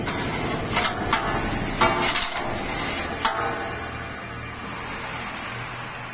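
Stainless-steel continuous seasoning machine running, with a handful of sharp metallic clanks and rattles in the first three seconds or so, then a steady hum.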